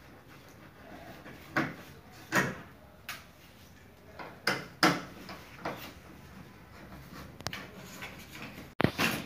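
Irregular knocks and clunks from hands working on a ceiling-mounted cassette air-conditioner indoor unit, about seven separate knocks spread over several seconds, with louder clattering near the end.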